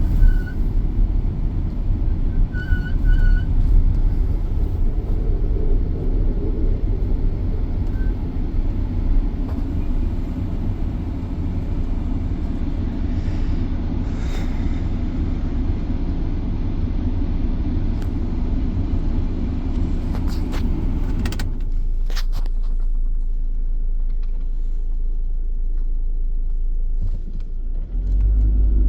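2019 Ford Transit van driving, with a heavy low rumble from the running gear that eases off about three-quarters of the way through, just after a few clicks. There are a few short high beeps near the start.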